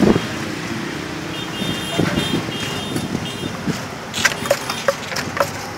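Steady street traffic, with a wooden pestle knocking in a clay mortar, a quick run of short knocks near the end, as green papaya salad is pounded.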